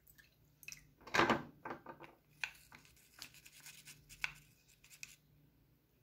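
Scattered small clicks and taps of hard plastic being handled: the green plastic body of a washing machine's inlet solenoid valve, taken apart for descaling. The loudest tap comes about a second in.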